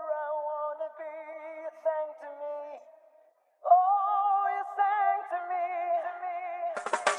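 A solo singing voice with no backing, holding long notes with vibrato in two phrases, with a brief pause about three seconds in. Right at the end a bright sweep and the first drum hits come in as the beat starts.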